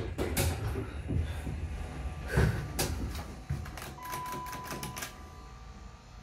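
Dover hydraulic elevator car door opening, with a series of clunks and clicks, the loudest near the start and about two and a half seconds in. About four seconds in, a steady beep sounds for about a second over a quick run of clicks as the car's push buttons are pressed.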